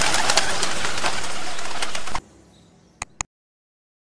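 Baku pigeons cooing and stirring, a dense busy sound that cuts off suddenly about halfway through. Two sharp clicks follow near the end.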